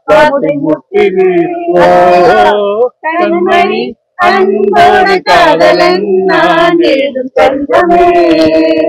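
Voices singing a melody in sung phrases broken by short pauses.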